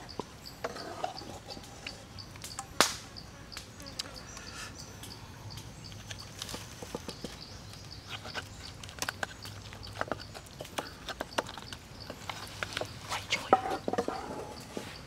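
Wooden spatula stirring and knocking in a metal pot of sauce, then daubing sauce onto raw chicken: scattered clicks and knocks, the sharpest about three seconds in and a cluster near the end. Insects chirp steadily in the background.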